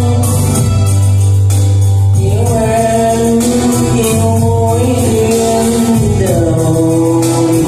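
Karaoke: a man singing into a handheld microphone over a loud backing track, holding long notes through the middle.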